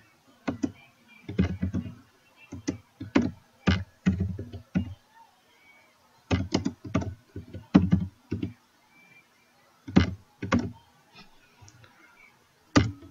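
Typing on a computer keyboard: irregular runs of keystrokes with short pauses between them, each keystroke a short clack.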